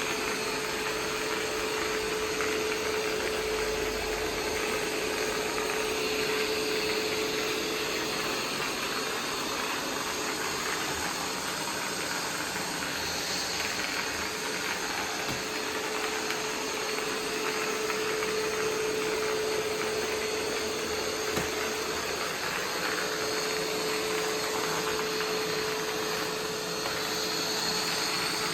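Roomba 505 robot vacuum running: a steady whir of its suction fan and brushes, with a hum that fades out and back in a few times.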